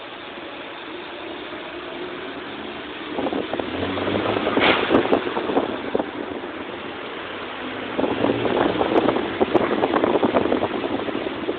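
Car engine pulling away and speeding up twice, heard from outside the car window, with a rattling rush of air and road noise on the microphone.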